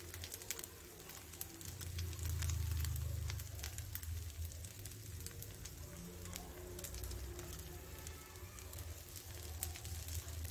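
Faint sizzling and crackling of rava uttapam batter cooking on a hot dosa tawa, over a low steady hum.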